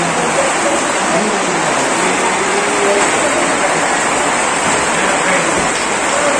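Heavy rain falling in a steady hiss.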